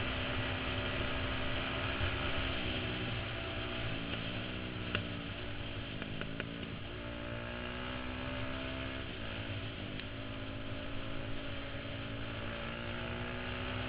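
KTM supermoto motorcycle engine running under way, heard from the rider's helmet. The revs drop and climb again several times between about three and seven seconds in, and once more near ten seconds.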